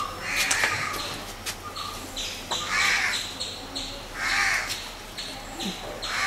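A crow cawing four times, a harsh call about every one and a half seconds, over a fast, steady high-pitched chirping.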